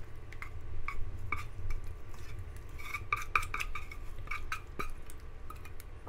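A cooking utensil scraping and knocking against a metal saucepan as thick buckwheat porridge is scraped out into a stainless steel bowl: a string of light clinks, each with a brief metallic ring, coming thickest about halfway through.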